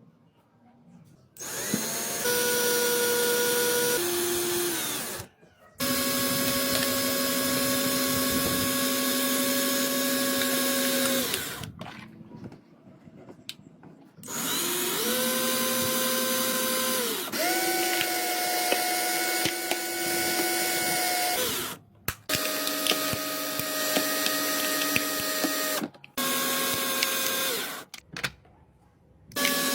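Electric power tool motor running in runs of a few seconds, stopping and starting about six times, its whine stepping up and down in pitch within some runs.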